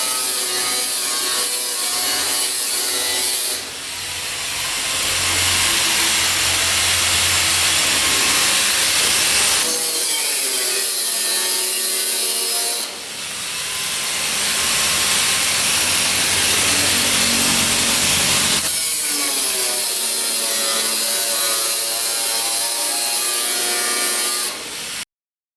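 Steel plate being cut with a power tool: a continuous harsh cutting noise laced with ringing metallic tones. It dips briefly twice and stops abruptly near the end.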